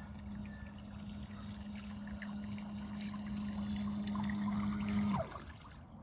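Bait boat's electric propeller motor running with a steady hum over churning water, getting gradually louder as the boat comes back under autopilot to its home point; the hum drops in pitch and stops about five seconds in.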